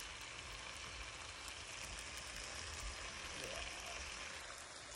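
Beef steaks sizzling in their juices in a nonstick frying pan: a steady, faint sizzle with small crackles.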